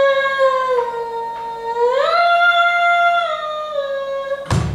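A single unaccompanied voice sustaining a high sung note, which steps up to a higher pitch about two seconds in and holds there. A short noise burst near the end.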